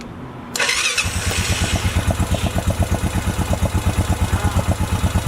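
Freshly rebuilt 2007 Honda ATV engine, with a new piston and cylinder, starting: a brief burst of cranking about half a second in, then it catches and settles into a steady, even idle of about ten beats a second.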